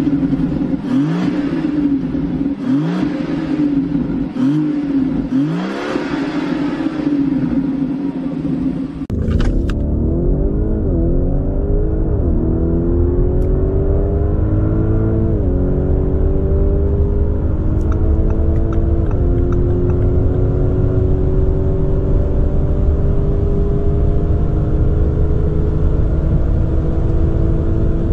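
A big V12 with its exhaust valves open is revved repeatedly while the car stands, in rising-and-falling blips about every second and a half with crackle. After a sudden cut about a third of the way in, a Lamborghini Urus's twin-turbo V8 accelerates at full throttle. Its pitch climbs steadily and drops back at each upshift, into fourth, fifth and, near the end, sixth gear.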